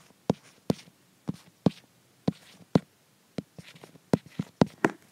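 A stylus tapping and clicking on an iPad's glass screen as numbers are handwritten: about a dozen sharp, irregular taps, coming faster near the end.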